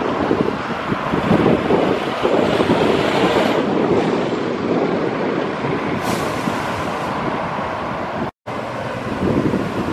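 Single-deck buses and a car driving past on a street, with steady engine and tyre noise. There is a brief hiss about six seconds in, and the sound drops out for a split second a little after eight seconds.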